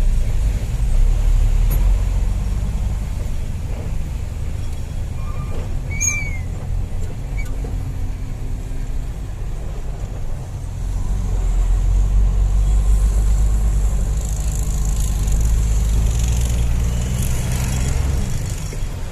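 Hino Ranger dump truck's diesel engine running on the road, a steady low drone that eases off for a while and then builds again about eleven seconds in.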